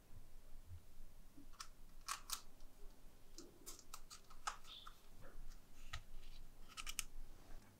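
Light, scattered clicks and taps of hands and utensils working at a kitchen counter while puff-pastry börek is prepared, about a dozen short sounds with no steady noise between them.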